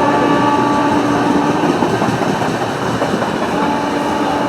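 WAP-7 electric locomotive horn sounding two long blasts, the first ending about a second and a half in and the second starting near the end, over the steady rumble and wheel clatter of a passing express train.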